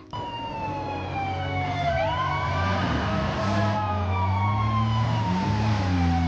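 Ambulance siren wailing: its pitch slides slowly down, then sweeps sharply back up about two seconds in and again near the end, over a steady low hum.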